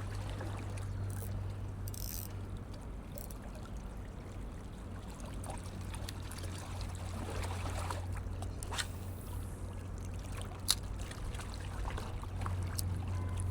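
A steady low rumble of wind on the microphone, with a few sharp clicks in the second half.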